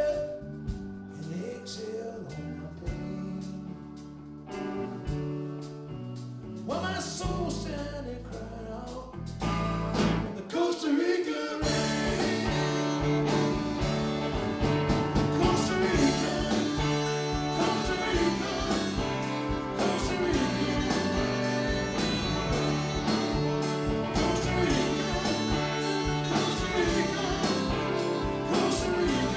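Live amplified band music with electric guitars, bass guitar and drums, with no words sung. A sparse, quieter passage gives way about eleven seconds in to the full band playing loud with a steady drum beat.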